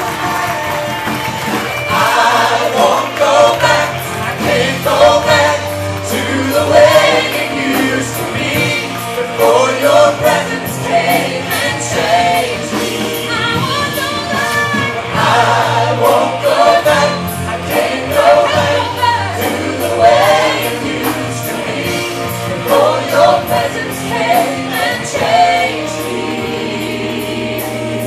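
Live church worship band: several singers singing a gospel worship song together over electric guitar, keyboard and drums, with a steady ticking cymbal beat.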